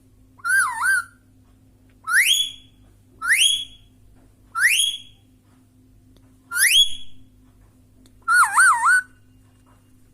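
Indian ringneck parrot whistling six times: a wavering whistle that dips and rises, then four short whistles that each sweep sharply upward, then a longer wavering warble near the end.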